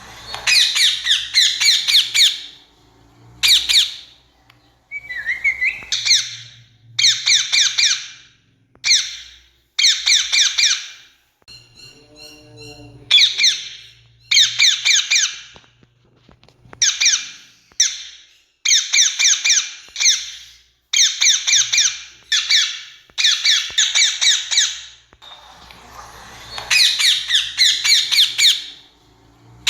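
Rose-ringed parakeet calling: repeated bouts of rapid, harsh screeching notes, each about a second long, with short pauses between them.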